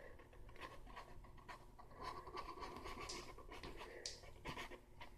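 Felt-tip marker drawing strokes on cardboard close to the microphone: faint scratching with a few short squeaks of the tip.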